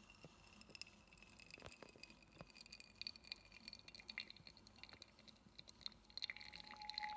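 Faint dripping and trickling of freshly brewed coffee running into the glass carafe of a drip coffee maker, with scattered light ticks.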